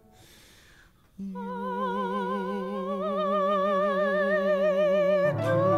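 Musical-theatre singing: after a brief soft lull, a voice holds a long note with wide vibrato, stepping up in pitch partway through, and a lower part joins near the end.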